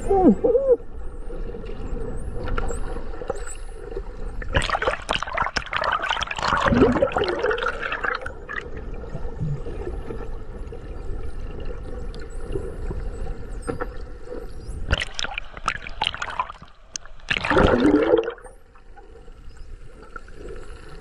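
A whale blowing at the surface: two long, breathy exhalations, one about five seconds in and one late on, over water sloshing and a steady hum.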